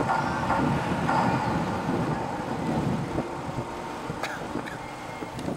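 City street traffic, cars running past, dying down over the few seconds. The last of a sustained tone from a handheld megaphone fades out about a second in.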